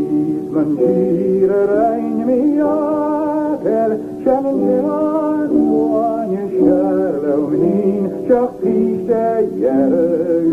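A Gaelic song being sung: a voice holds long, wavering notes in a flowing melody, with sustained tones beneath it.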